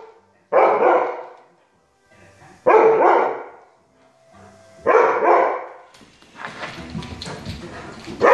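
Siberian husky barking: three sharp barks about two seconds apart, each dying away over most of a second, then a rougher, steadier sound in the last couple of seconds ending in another bark.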